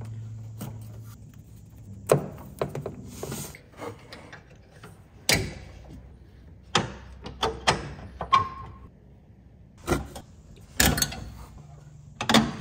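A series of sharp clicks and clunks from unplugging the two blade-motor wiring connectors on an EGO Z6 electric zero-turn mower and working its deck handle, with a short squeak about eight seconds in.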